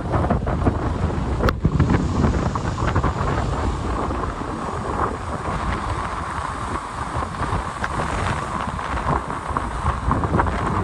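Gale-force storm wind buffeting the microphone with a loud, continuous rumble, with rough sea surf churning behind it.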